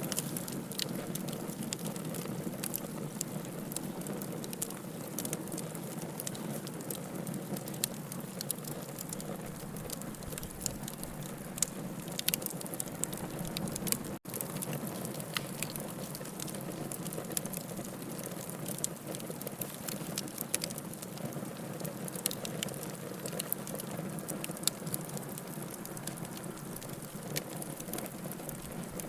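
Bonfire of burning wood crackling, with irregular sharp pops over a steady low rush of flame. The sound drops out for a split second about halfway through.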